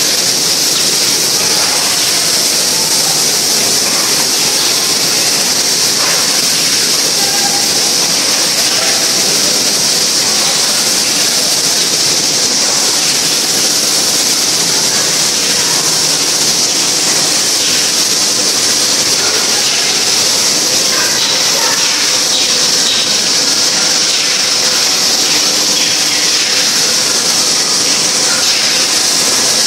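Wafer biscuit production line running: a loud, steady hiss of factory machinery that does not change, with faint clatter in the second half.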